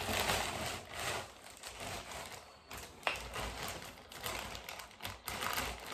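Packaging rustling and crinkling in short, uneven bursts as a parcel is handled and opened, with a sharp click about three seconds in.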